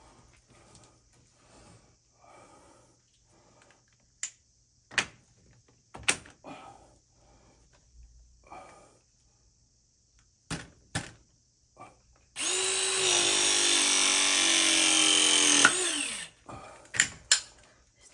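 A power drill runs for about three seconds past the middle, a steady motor whine that falls in pitch as it stops. Scattered knocks and taps of handling the pipework come before and after it.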